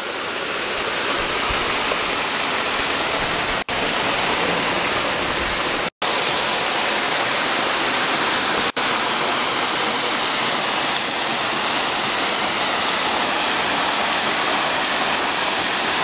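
Steady rush of a small waterfall pouring over boulders into a rocky pool, broken by three brief silent gaps about four, six and nine seconds in.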